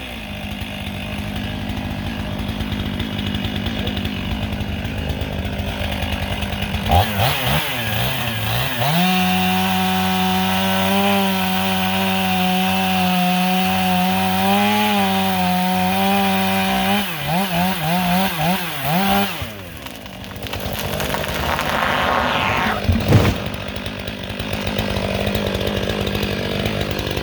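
Chainsaw running and cutting: it revs up and down, holds a steady high-pitched whine at full throttle for about eight seconds, then wavers and dips briefly before running on. A sharp, loud knock stands out a few seconds before the end.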